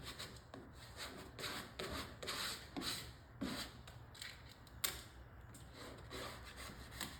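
Vinyl stripe being rubbed down onto a car's painted body panel: a run of short, faint rubbing swipes, a few a second, with one sharp tick about two-thirds of the way through.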